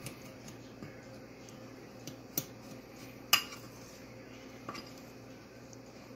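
Fingers working a dry mix of flour, oats and sugar in a mixing bowl, with a few sharp clinks against the bowl, the loudest a little over three seconds in, over a faint steady hum.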